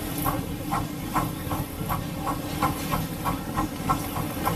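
7½-inch gauge live-steam scale locomotive running under way, with an even beat of about three a second over a steady hiss of steam.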